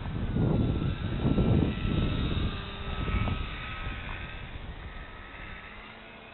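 Foam RC airplane's motor and propeller giving a thin steady whine that shifts slightly in pitch, with heavy wind buffeting on the microphone in the first half that dies away as the sound grows quieter.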